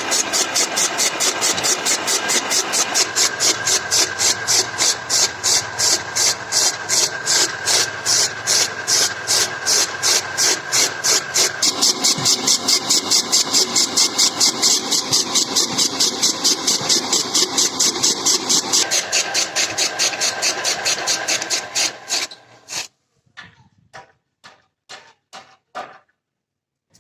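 An engine running with a fast, even beat of about four to five pulses a second. Some 22 seconds in it is shut off, and the beats slow and fade until it stops.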